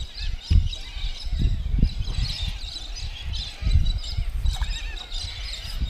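Birds chirping over a riverbank, mixed with irregular low thumps and rumbles, loudest about half a second in, around a second and a half in, and near four seconds in.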